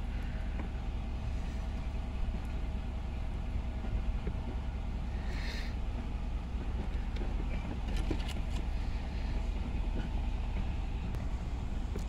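Pickup truck engine and tyres rumbling steadily while driving slowly on a dirt track, heard from the cab, with a brief hiss about halfway through.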